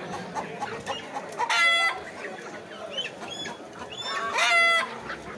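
Caged live chickens calling, with two loud, short calls about a second and a half and four and a half seconds in, and fainter chirps and clucks between them.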